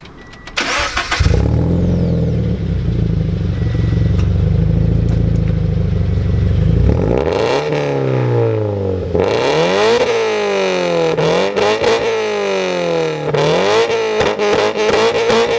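Sports coupe's flat-four engine, with its catalytic converter and resonator deleted, starting up about a second in and idling loudly through the straight-through exhaust, then being revved in repeated blips, rising and falling about once a second, from about seven seconds in.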